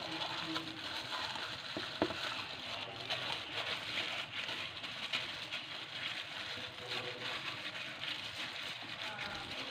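Fish sizzling as it grills: a steady crackling hiss, with one sharp knock about two seconds in.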